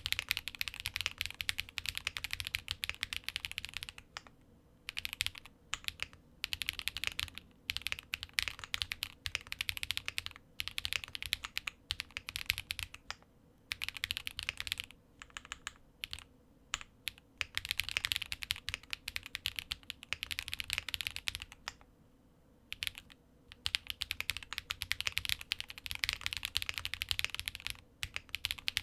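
Typing on a QK65 custom mechanical keyboard with lubed Geon Peri linear switches on a POM plate, under JTK Azure keycaps: fast runs of key presses in bursts of several seconds with short pauses between them.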